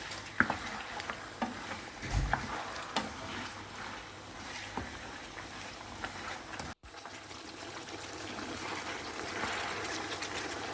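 Bone-in mutton frying in oil and ghee, a steady sizzle with scattered pops and crackles. There is a brief low thump about two seconds in.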